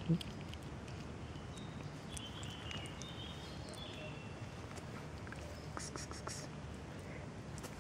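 Quiet outdoor background with faint high chirps in the first half and a few soft clicks.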